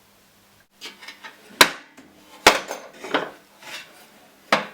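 Metal cantilever toolbox trays being worked: a few sharp metal clanks, the loudest about one and a half, two and a half and four and a half seconds in, with lighter clinks between.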